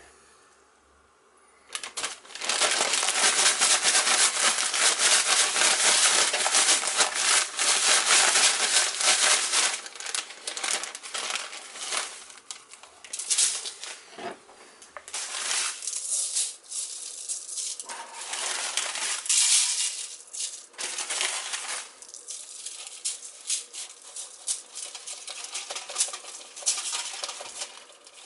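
A one-gallon plastic zip-top bag crinkling as a pork chop is shaken inside it in Shake 'n Bake crumb coating. The shaking starts about two seconds in and runs steadily for about eight seconds, then breaks into shorter, irregular rustles.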